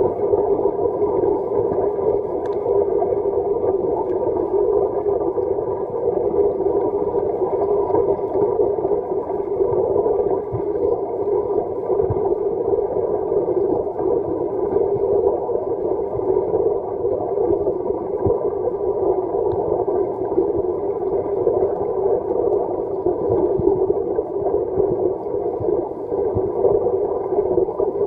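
Muffled, steady churning of water in a washing machine drum, heard from underwater among sneakers being washed.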